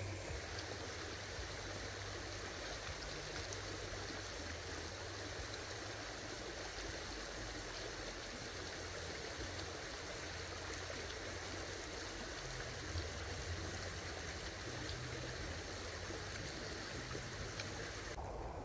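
Steady, even rushing background noise with a few faint ticks.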